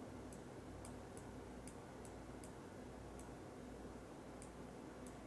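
Computer mouse clicking, about nine sharp clicks at irregular intervals, over a faint steady low hum.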